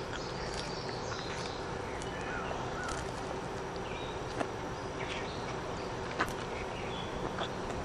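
Summer outdoor ambience: birds chirping here and there over a steady background of insects and rustle, with two sharp clicks about halfway and near the end.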